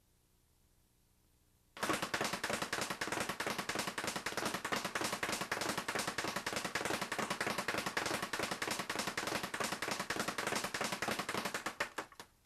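Leather speed bag being punched in a fast combination, its strikes and rebounds off the wooden platform making a rapid, continuous rattle. It starts about two seconds in and trails off near the end.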